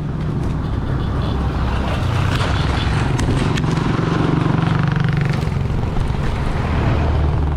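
Ride noise picked up by a GoPro Hero8 Black's built-in microphone on a moving bicycle: a steady low rumble of wind and road traffic, with a few faint clicks.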